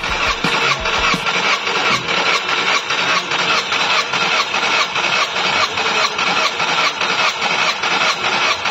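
Starter motor cranking a Skoda Superb's four-cylinder petrol engine without it firing, in a steady even chugging rhythm, while a compression gauge in one spark-plug hole takes a reading. It is a compression test, done to check for worn piston rings behind heavy oil consumption.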